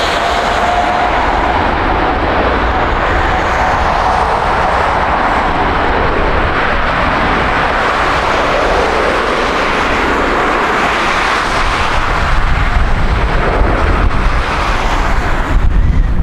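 Jet engines of a Boeing 787-9 running at high thrust as the airliner begins its takeoff roll, a loud steady engine noise with a high fan tone that fades early on. A low buffeting rumble of jet blast and wind on the microphone grows in the last few seconds.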